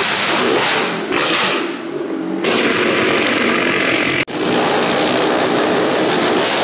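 Motorcycle and car engines running hard as they circle the vertical wooden wall of a wall-of-death drum, a loud, continuous din. The sound cuts out for an instant a little past halfway.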